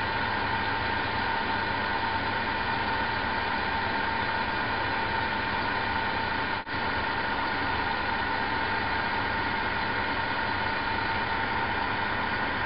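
Vacuum pump running with a steady mechanical hum and whine, evacuating the glass vessel to a low vacuum while a high-voltage glow discharge lights it. The sound drops out for a split second about halfway through.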